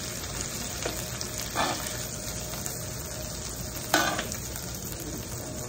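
Hot oil and chicken fat sizzling steadily in a 15-inch cast iron skillet as chicken pieces are lifted out, with a few sharp clinks of metal tongs against the pan, the loudest about four seconds in.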